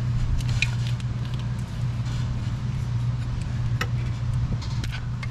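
Intake plenum on a 7.3 Powerstroke diesel being pried and peeled off the cylinder head, its gray sealant breaking loose: a few scrapes and sharp metallic clicks, over a steady low hum.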